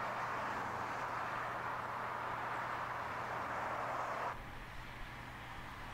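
Road traffic: a steady rush of cars driving past on a dual carriageway, turning quieter about four seconds in.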